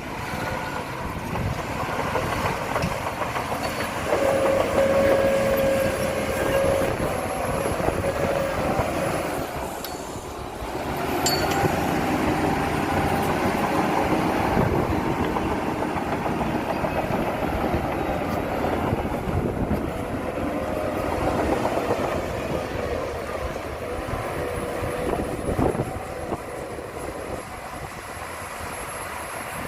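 Heavy earthmoving machinery at work: a diesel engine running steadily under load with metallic clatter and a whining tone that comes and goes, briefly easing about a third of the way in.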